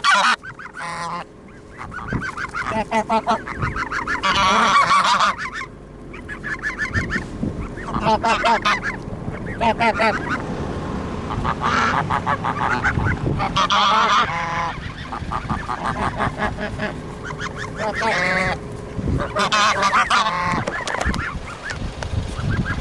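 A flock of domestic geese honking close by, in repeated bouts of overlapping calls every few seconds.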